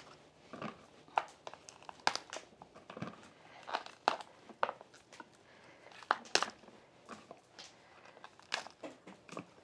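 Fresh cauliflower being cut and broken apart into florets on a wooden board: irregular crisp snaps and crunches as the stems give way.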